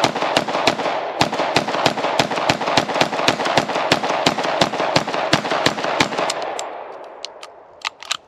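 IWI Uzi Pro 9mm pistol fired in rapid semi-automatic succession, about four shots a second, with the reports echoing. The string stops about six seconds in, and a few fainter cracks follow near the end.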